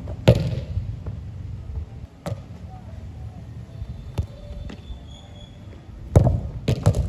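Football being kicked and struck: a hard knock about a third of a second in as a just-taken shot lands, lighter single touches around two and four seconds in, then a hard shot about six seconds in followed by a quick run of knocks near the end.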